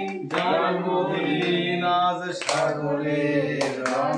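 Chanting in a low male voice range, with long held notes that step in pitch, broken now and then by hissing consonants.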